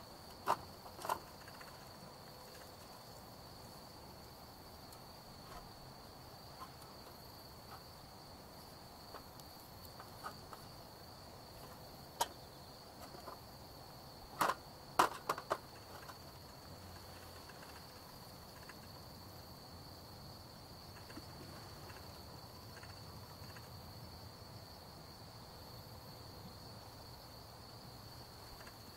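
Night insects, crickets or the like, keeping up one steady high-pitched trill, with a few sharp clicks or snaps here and there, a cluster of them about halfway through.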